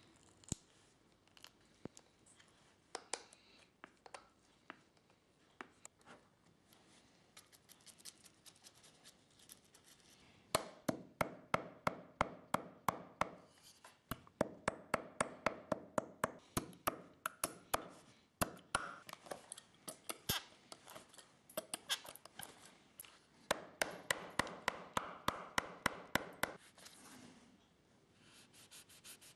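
Shoemaker's hammer tapping on the leather upper stretched over the last, in several quick runs of sharp blows at about four a second, after a stretch of scattered light tool clicks. Softer scraping near the end.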